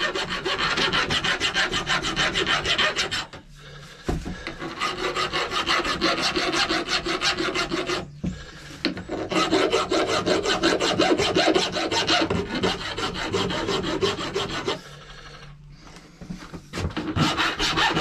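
Hand file scraping back and forth on metal, taking off a burr, in three spells broken by short pauses.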